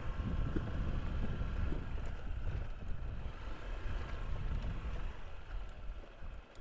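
Wind buffeting the microphone over the Honda ADV150 scooter's single-cylinder engine as it rides over a dirt track. The rumble eases about six seconds in.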